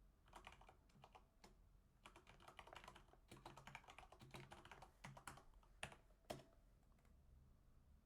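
Faint typing on a computer keyboard: quick runs of key clicks, with two sharper keystrokes near the end.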